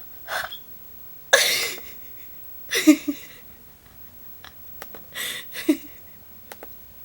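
A person hiccuping: short, sudden hics with a brief voiced catch, about three seconds apart, with breaths in between.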